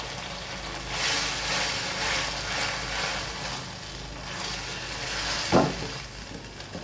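Gravy sizzling and bubbling in a wok as cornflour slurry is poured in and stirred with a spatula, over a steady low hum. The spatula knocks against the wok about five and a half seconds in.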